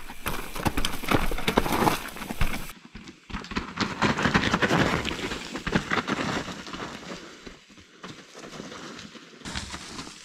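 Mountain bikes rolling fast down a dirt forest trail strewn with leaves and roots: tyres crunching and knocking over the ground, with the bike rattling. It is loudest and busiest in the first few seconds, then turns duller and fainter after an abrupt change.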